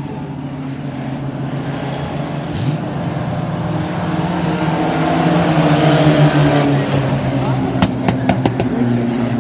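Engines of a pack of racing pickup trucks running at speed around an oval track, growing louder to about six seconds in as the field passes, then easing off. A few sharp clicks come near the end.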